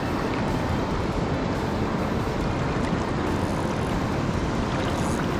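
Steady rushing of river water flowing below a dam, an even unbroken noise heaviest in the low end.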